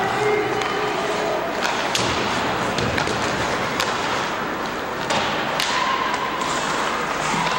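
Ice hockey play: a steady wash of skate and rink noise, broken several times by sharp clacks and thuds of sticks and puck.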